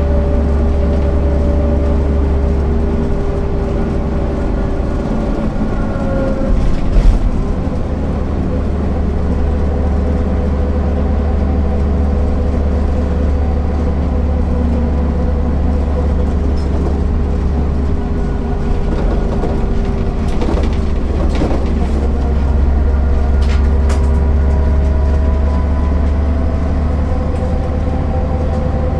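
MAN NL 262 city bus running under way, its engine and ZF 5 HP 600 automatic gearbox giving a steady drone whose pitch falls and rises as it drives. There is a knock about seven seconds in and a few sharp clicks later.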